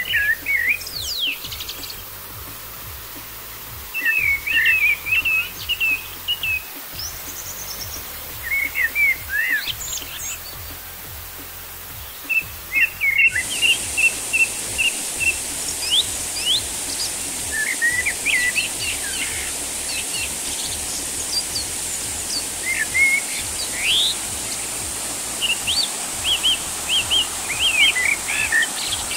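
Small birds chirping and calling over and over with short rising and falling notes, over the steady rush of a small waterfall that becomes louder suddenly about halfway through.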